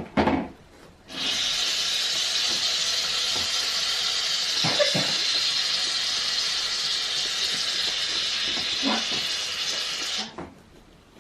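Aerosol can of shaving foam spraying in one long continuous hiss lasting about nine seconds, as foam is dispensed onto glue for fluffy slime.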